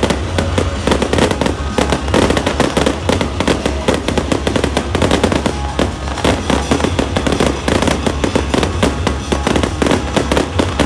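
Aerial fireworks bursting in quick succession: a dense, unbroken run of bangs and pops from many shells at once.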